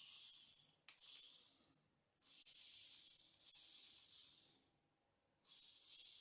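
Faint high whir of the ATuMan E3 electric screwdriver's small motor, running in short spurts of one to two seconds, with light clicks as its forward and reverse buttons are pressed.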